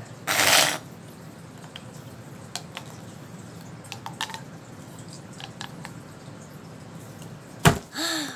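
Fidget toys being handled: a loud squishy rush just after the start, then scattered small clicks and taps. Near the end comes a sharp knock followed by a short pitched squeak.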